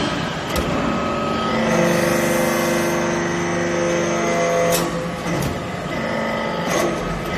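Hydraulic metal-swarf briquetting press working: its hydraulic power unit runs with a steady whine of several tones for about three seconds while the ram travels, broken by sharp clacks about half a second in and near five seconds in.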